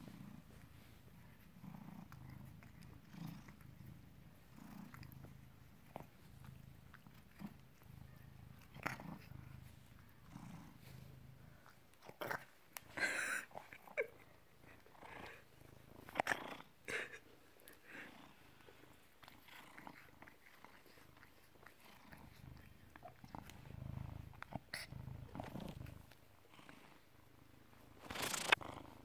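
British Shorthair cat purring steadily, close to the microphone, the purr swelling and fading with each breath. A few louder rustles break in about twelve seconds in, again around sixteen seconds, and near the end.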